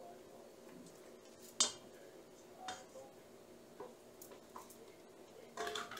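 A spoon tapping and scraping against a small bowl as butter is knocked out into a stand mixer's bowl: a handful of sharp taps about a second apart, the loudest about a second and a half in, and a short rattle of taps near the end.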